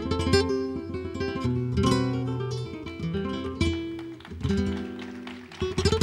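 Flamenco guitar playing the opening of a bulerías por soleá: plucked single-note phrases broken by sharp strummed chords, with a quick flurry of strums near the end.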